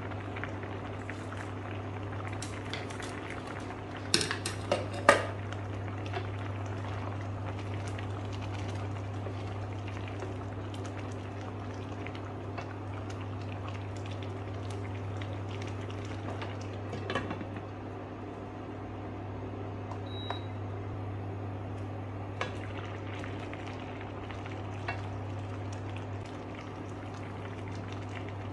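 Vegetable soup bubbling in a stainless steel pot, a steady crackling simmer over a constant low hum. A few sharp knocks of a utensil against the pot, the loudest about four to five seconds in and another near the middle.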